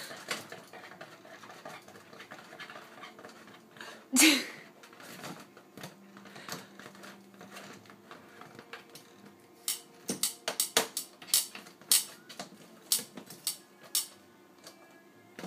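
Kitchen tongs clacking and tapping against a plastic pet-door flap as a cat bats at them, a run of sharp clicks that comes thickest in the last few seconds. One short, loud, breathy vocal sound about four seconds in.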